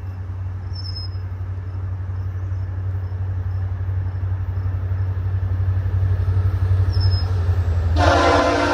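Approaching VIA Rail GMD F40PH-2 diesel locomotives: a low engine rumble that grows steadily louder as the train nears. About eight seconds in, the locomotive's air horn starts blowing a loud, steady chord.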